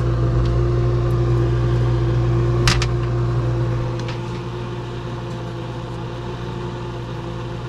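Refrigerator running with a steady hum, its freezer fan motor now running quietly after rust was cleaned off its rotor magnets. A single sharp click comes under three seconds in, and the low hum drops slightly about four seconds in.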